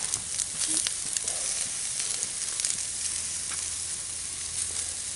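Buttered steaks sizzling steadily on a cast-iron grate over a wood campfire, with many small pops and crackles through the hiss.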